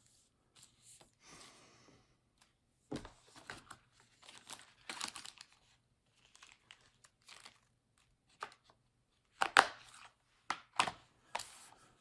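Packaging being handled and sealed back up: irregular crinkling and rustling with short tearing sounds, the loudest about nine and a half seconds in.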